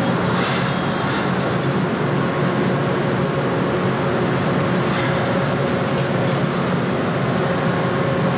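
Long Island Rail Road M1 electric multiple-unit train at a station platform, a steady hum and rumble with a faint constant tone, the cars starting to roll slowly past in the second half.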